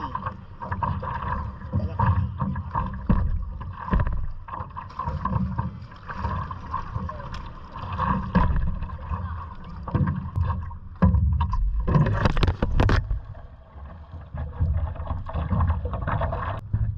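Water slapping and sloshing against a stand-up paddle board just under a camera on the board's nose, with wind buffeting the microphone. A louder splash comes about twelve seconds in.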